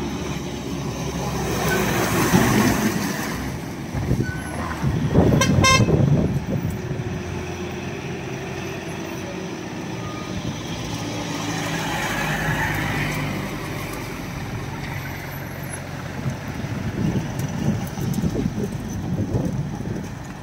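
Heavy diesel goods trucks pulling slowly round a tight hairpin bend, a steady low engine drone with tyre noise that swells as each truck passes. A brief pulsing horn sounds about five to six seconds in.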